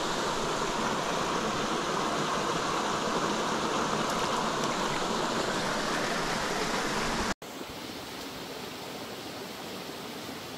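Small mountain creek running over rocks: a steady rush of water that drops suddenly to a softer rush about seven seconds in.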